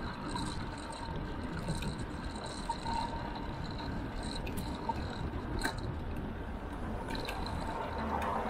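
Wind buffeting the microphone of a bicycle-mounted action camera, with tyre and road noise, while riding at about 35 km/h. Traffic noise grows louder near the end as a vehicle comes up alongside.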